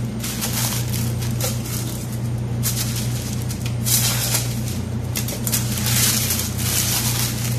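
Baking paper rustling and crinkling in repeated bursts as it is folded and pressed around a leg of lamb, over a steady low hum.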